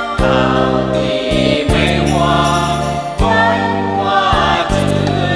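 A song: a group of voices singing a line in Mandarin over instrumental accompaniment, with held bass notes that change about once a second.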